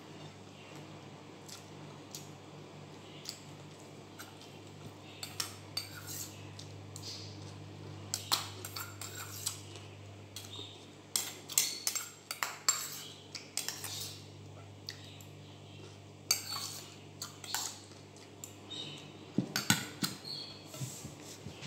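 Metal spoon clinking and scraping against a stainless steel bowl and a plate in irregular clusters of sharp clinks, over a steady low hum.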